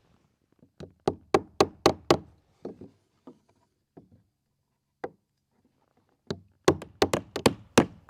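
Hammer driving nails into wooden trim boards: a quick run of about five blows, a few lighter single taps, then another run of blows at about three a second near the end.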